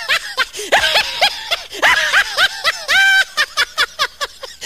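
High-pitched laughter: a rapid string of 'ha ha ha' bursts, several a second, in a few runs with short breaks.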